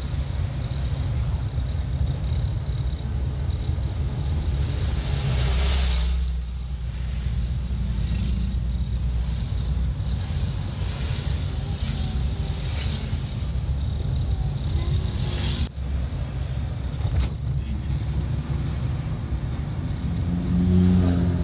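Engine and road noise inside the cab of a 1994 Suzuki Carry 1000 driving on a wet road: a steady low rumble with tyre hiss, swelling louder about five seconds in.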